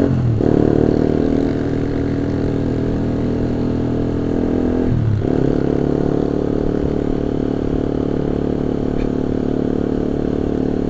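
Honda CB150R's single-cylinder four-stroke engine running under way through an aftermarket racing exhaust. Its steady note dips briefly twice, right at the start and about five seconds in.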